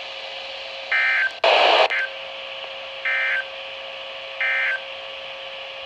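Three short bursts of EAS digital data tones from a NOAA Weather Radio broadcast: the end-of-message code that closes the alert. A loud burst of static falls between the first two, over a faint steady tone and hiss.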